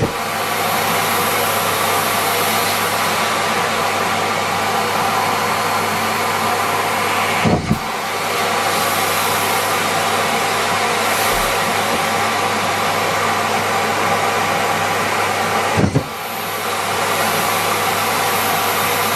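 Miele Complete C3 canister vacuum cleaner running steadily, a rushing airflow over a motor hum, with two brief dips where the pitch shifts, about seven and a half and sixteen seconds in.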